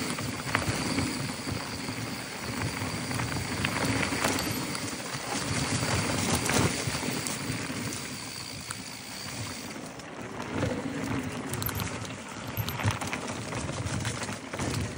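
Mountain bike descending a dry dirt trail at speed: knobby tyres crunching over dirt, dry leaves and small rocks, with the bike clattering over bumps in many short knocks.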